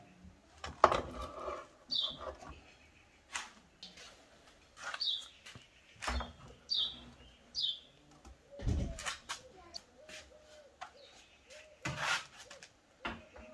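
Small birds chirping, short downward-sweeping calls repeated every second or two, over irregular clanks, knocks and scrapes of metal baking trays being handled in a brick oven, with a heavy thump about nine seconds in.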